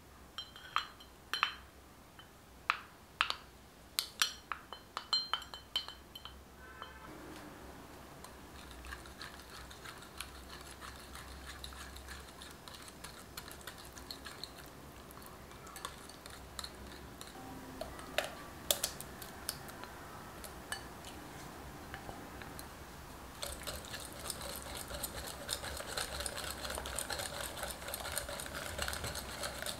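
Wire whisk beating mashed banana and yogurt in a glass mixing bowl: a steady, wet, scratchy stirring that gets faster and louder for the last several seconds. It is preceded by a run of sharp clinks during the first six seconds.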